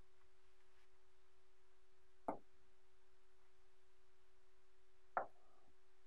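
Two short knocks as cubes of small magnetic balls are set down on a hard tabletop, one about two seconds in and one about five seconds in, over a faint steady tone.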